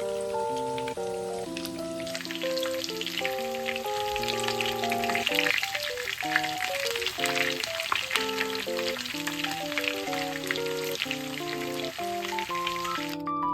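Food frying in hot oil, a dense crackling sizzle that grows stronger about two seconds in and cuts off just before the end, with light background music playing over it.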